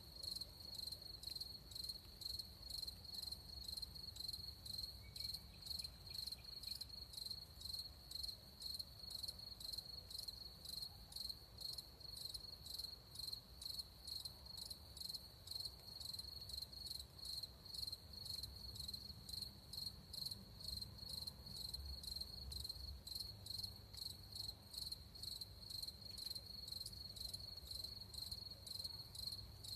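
Crickets chirping: a high, even trill pulsing at a steady rhythm several times a second, without a break.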